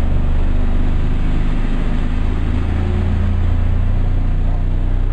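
Two large car-audio subwoofers in a pickup's cab playing very loud, deep steady bass notes, with the pitch shifting slightly about two seconds in.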